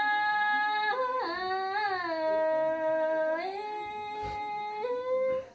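A single voice singing a slow, unaccompanied traditional folk song, holding long drawn-out vowel notes that slide from one pitch to the next. It stops just before the end.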